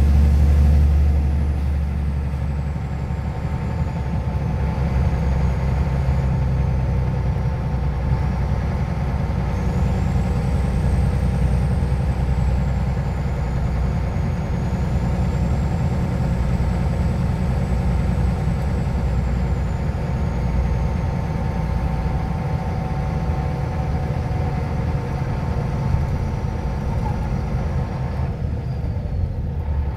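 Scania OmniLink I CL94UA articulated bus under way, its engine heard from inside the passenger cabin as a steady low drone. A faint high whine rises and falls in pitch over it and slides down near the end.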